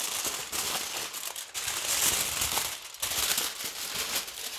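Aluminium foil crinkling and crackling as a large sheet is rolled and squeezed by hand around a small foil figure, with brief lulls about a second and a half and three seconds in.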